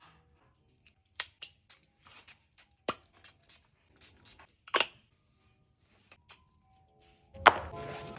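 Scattered light clicks and taps, of small objects being handled at close range, separated by near silence. About seven seconds in, music comes in with a sharp hit and then carries on steadily.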